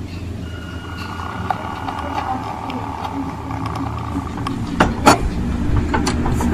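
An engine running steadily, growing louder toward the end, with a couple of sharp clicks about five seconds in.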